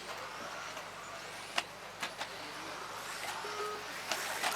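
Electric 4WD off-road RC buggies racing on a dirt track: a steady hiss of motors and tyres, broken by several sharp clacks, about a second and a half in, again at two seconds, and a few near the end.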